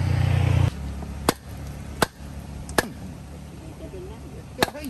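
A wooden club hammering the back of a knife blade to drive it through a large rohu fish on a wooden log chopping block. There are four sharp knocks: three about three quarters of a second apart, then a fourth after a longer pause.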